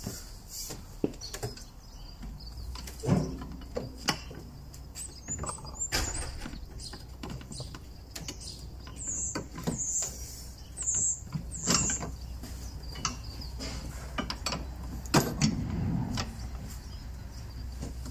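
Scattered metal clunks, clicks and scrapes as an aftermarket front strut brace is wiggled into place over the strut-top bolts of a BMW E60, with a few louder knocks along the way.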